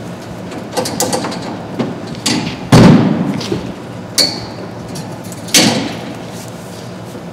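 Flathead axe and halligan bar being unclipped and pulled from their mounting brackets in a fire engine compartment: a string of metal clanks and knocks, the loudest about three seconds in, one of them with a short metallic ring.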